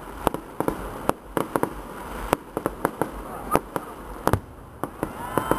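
Fireworks going off: a rapid, irregular run of sharp bangs and crackling pops, about four a second, with one heavier, deeper bang a little after four seconds in.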